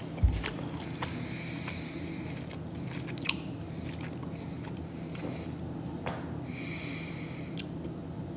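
A person eating close to the microphone: chewing and mouth sounds with scattered small clicks, and a dull thump just after the start.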